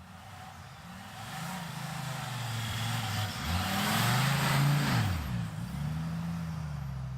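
A motor vehicle engine running, its pitch rising and falling several times, loudest about four to five seconds in.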